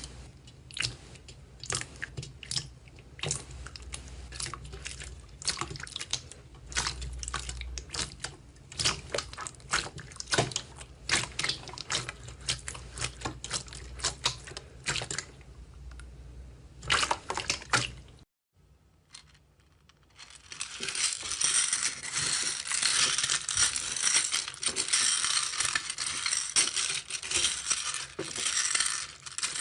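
Slime being poked and squeezed, giving sharp wet clicks and pops one after another. After a short break about two-thirds of the way in, a dense, continuous crackling takes over, as with crunchy slime being pressed.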